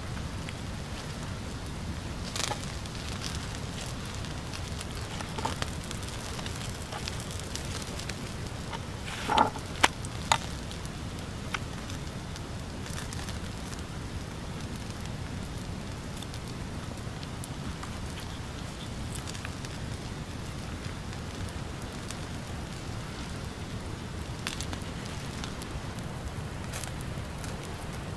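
Wood fire crackling: scattered pops and snaps over a steady low rumble, with a cluster of louder snaps about ten seconds in.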